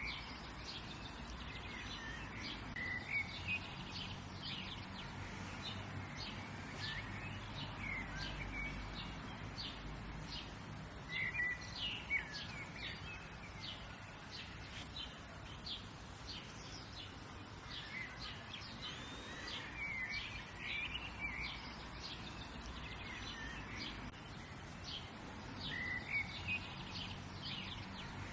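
Several wild birds chirping and calling in short, quick notes throughout, over a steady faint background hiss.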